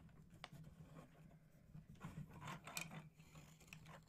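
Faint clicks and rustling of small plastic Mega Bloks pieces being picked through and handled on a desk, busiest about two to three seconds in, over a low steady hum.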